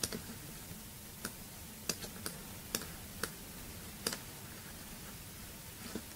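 Scattered clicking at a computer, about eight short clicks at uneven intervals, over a faint steady low hum.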